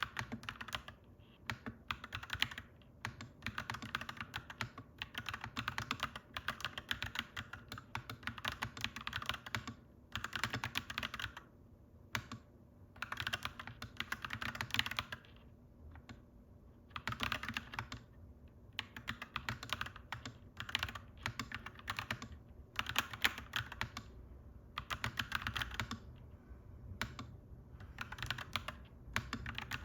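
Fast typing on a clacky mechanical keyboard, in bursts of rapid keystrokes a second or few long with short pauses between them.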